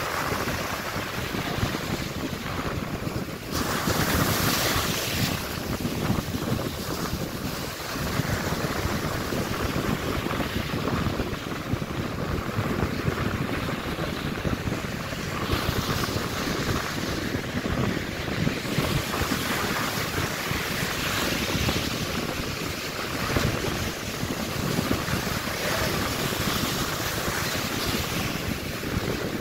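Ocean surf breaking and washing up a sandy beach, a steady hiss that swells louder a few times as waves come in, with wind buffeting the microphone.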